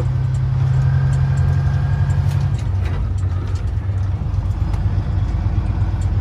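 Semi-truck diesel engine running steadily with a low drone; its note drops to a lower pitch about two and a half seconds in.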